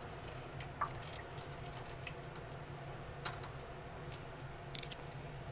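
A plastic spatula stirring watery barley dalia in a pressure cooker pot: a few light taps and clicks against the pot, with a small cluster near the end, over a steady low hum.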